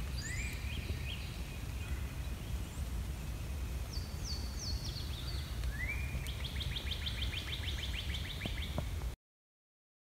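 Songbirds singing in woodland: a rising whistled note, then a run of four quick high notes that slur downward, then another rising note leading straight into a fast trill, over a steady low rumble. All sound cuts off suddenly about nine seconds in.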